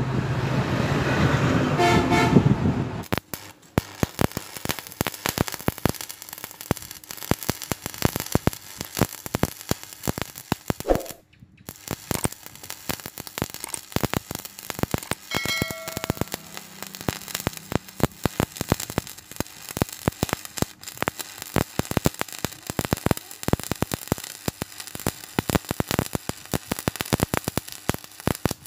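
Shielded metal arc (stick) welding with an E6013 electrode on steel plate: the arc gives a dense, steady crackle that starts about three seconds in and drops out for about half a second near the middle before carrying on. Before it comes a few seconds of louder low rumble.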